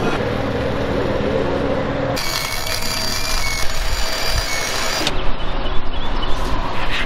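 MIG welder arc crackling and hissing for about three seconds as a bead is run on a steel handrail pipe, starting and stopping sharply. Before it there is a steady low hum with noise, and after it a few scattered metal knocks.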